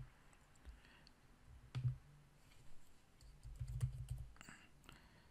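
Faint computer keyboard keystrokes and mouse clicks: a few separate clicks, then a quick run of keystrokes about three to four seconds in.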